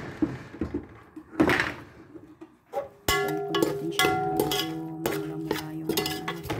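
A metal skimmer stirring and scraping sautéed onions in a steel pot, two short scrapes about a second and a half apart. About three seconds in, background music with plucked strings and a steady beat starts suddenly and covers the rest.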